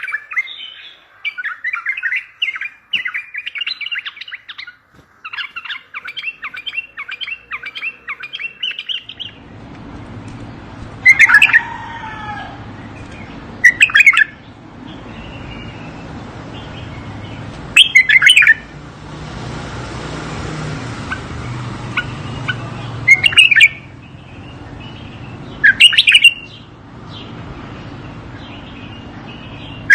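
Bulbul song. It opens with a quick run of chirps and whistles for about nine seconds. Then, over a low background hum, come loud short phrases every three to five seconds.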